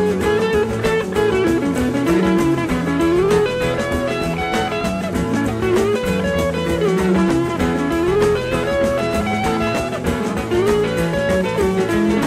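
Background music: an upbeat instrumental led by guitar, with a steady drum beat.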